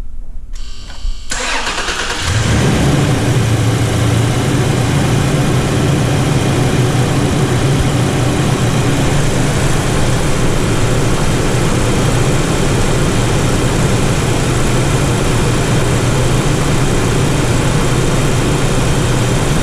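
2019 Toyota Tacoma engine starting about two seconds in, then running steadily at idle: its first start after the tune-up with the intake manifold reinstalled.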